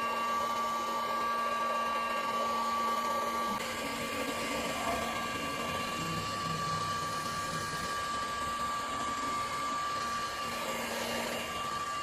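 Heat gun blowing steadily while it shrinks heat-shrink tubing over a power cord.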